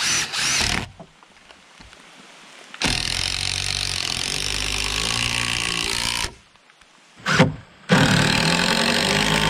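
DeWalt cordless impact driver driving long structural screws into rough-sawn timber rafters: two runs of about three seconds each, the first about three seconds in and the second about eight seconds in, with a short burst between them.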